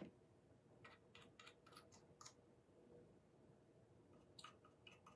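Near silence: room tone with a few faint, scattered small clicks, the handling of a paintbrush and plastic model-kit parts.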